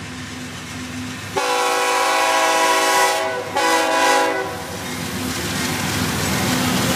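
A GE C40-8W diesel freight locomotive approaching and sounding its air horn twice: a long blast about a second and a half in, then after a short break a shorter one. Its engine rumble and the rail noise grow louder as it draws close.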